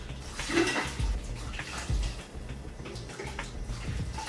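Chicken broth being ladled out of a stockpot and poured through a mesh soup strainer into another pot: liquid pouring and splashing in several scoops.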